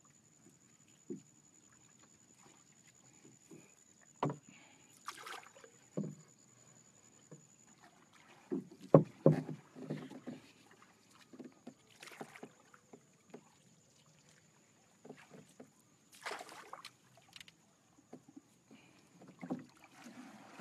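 Irregular knocks and thuds on the wooden hull of a small fishing boat, mixed with brief splashes of water as the fisherman works over the bow; the loudest run of knocks comes about nine seconds in.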